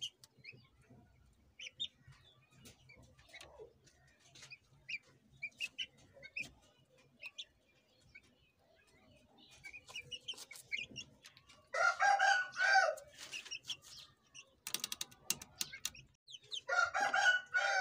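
Young Aseel chickens peeping with short, high chirps, then giving two longer, louder calls, about twelve seconds in and again near the end. A brief rattle of quick clicks comes between the two calls.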